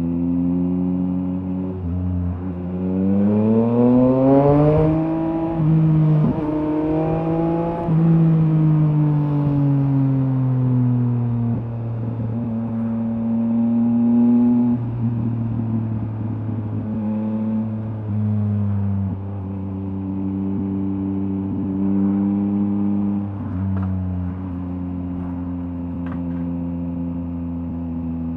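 Yamaha MT-09's three-cylinder engine through a LeoVince LV Race exhaust, revving up steeply about three seconds in, then falling slowly in pitch as the throttle eases. It then runs at a fairly steady pitch with a few small dips and rises.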